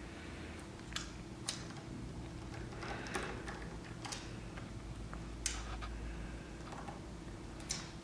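Scattered light clicks and taps of a small screwdriver and tiny parts handled on an iPhone 4S during reassembly, about five sharp ones spread out, over a faint steady hum.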